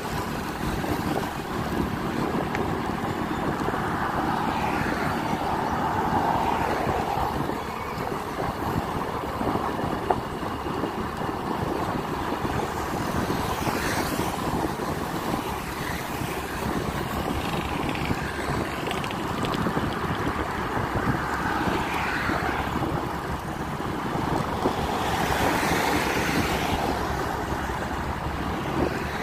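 Steady road noise from a moving vehicle with wind blowing across the microphone, swelling briefly a few times.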